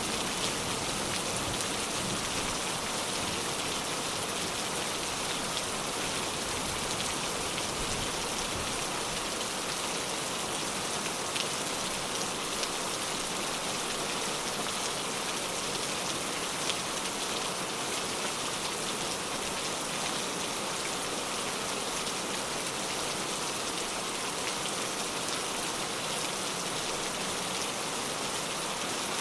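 Steady, even rain falling and pattering on a surface, with scattered small drop ticks. The low rumble of a thunder clap dies away in the first moment.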